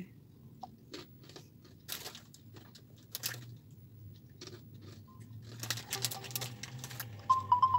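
Light clicks and taps of fingers handling a Realme C53 smartphone and tapping its touchscreen, thickest for about a second and a half past the middle. Near the end the phone's speaker starts a short melody of clear notes, its ringtone.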